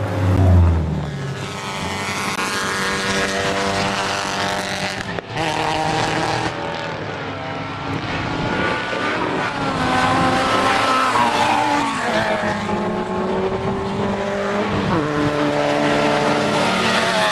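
Racing cars' engines running at high revs as they drive past, the engine notes rising and falling, with more than one car heard at times. There is a heavy low thump about half a second in.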